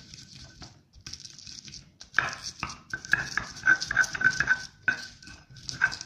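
Stone pestle grinding and scraping raw chilies, shallots and garlic against a stone mortar into spice paste: a run of knocks and gritty scrapes. About halfway through it becomes a fast, rhythmic grinding of about five strokes a second with a squeaky edge.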